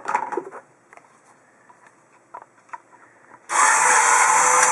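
Swingline 525/523 electric three-hole punch's motor and cam drive running, with the cover off, after a few faint handling clicks; the motor starts suddenly about three and a half seconds in and runs steadily. The mechanism is being cycled after its piston track was bent back into shape and oiled.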